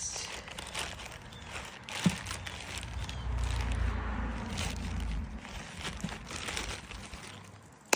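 Rustling and crinkling of packaging with scattered clicks and knocks as the parts are handled, a sharper knock about two seconds in and a low rumble for a couple of seconds in the middle.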